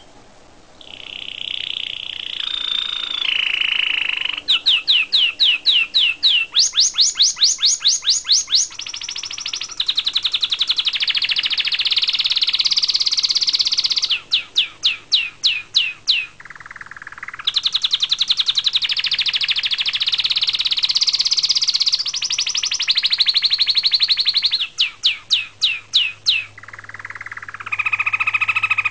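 Domestic canary singing a long continuous song: runs of repeated rising notes, several a second, alternate with fast rolling trills, with only brief breaks between phrases.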